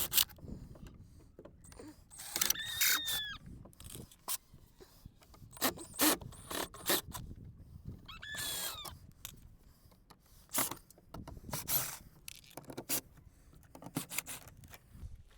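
Scattered clicks, knocks and scraping from handling the automatic chicken coop door while it is being taken off, with two brief high squeaks, about 3 and 8 seconds in.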